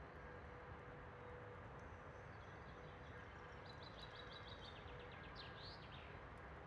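Faint forest ambience with a steady low rumble; about halfway through a small songbird sings a quick run of high chirping notes that ends in a couple of swooping notes.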